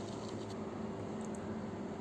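A steady low hum over a faint hiss, with a couple of faint light clicks.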